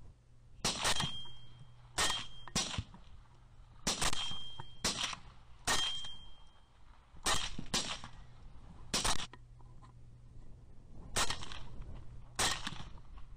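Rifle shots, about a dozen in quick, irregular succession, several in close pairs. A few are followed by a short, high ringing tone.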